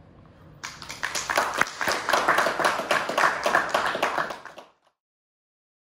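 A small group of people clapping, starting about half a second in and cut off suddenly after about four seconds.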